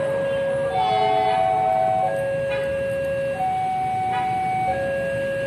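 Railway level-crossing warning alarm sounding as a train approaches: an electronic two-tone signal that alternates between a higher and a lower tone about every 1.3 s.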